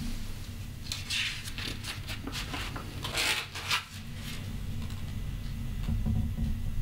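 Large sheets of drawing paper rustling and sliding as a page in a portfolio is turned, a crackly burst of rustles in the first half.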